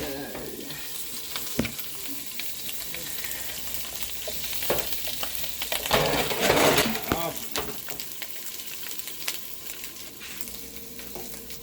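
Wood ear mushrooms sizzling in butter in a frying pan on high heat, a steady hiss with a few light clicks. The sizzle swells louder for about a second and a half around six seconds in.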